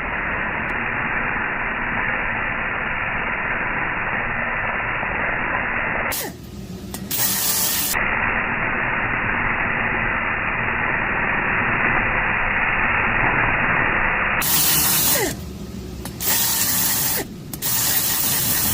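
Valve seat grinder running, its 30° and 60° stones grinding the intake valve seats of a Toyota 3VZ-E cylinder head to narrow the 45° seat for a 3-angle valve job. A steady, hissing grind, with a short break about six seconds in and a few brief dips in the last few seconds.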